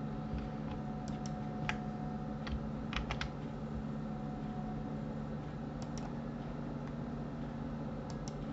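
Scattered clicks of a computer keyboard and mouse, some in quick pairs, over a steady low hum.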